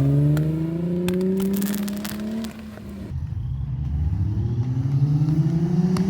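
Car engine accelerating under load, its pitch climbing steadily. About two and a half seconds in it briefly drops off, then comes back at a lower pitch and climbs again, as with a shift up a gear. Scattered short clicks and crackles run through it.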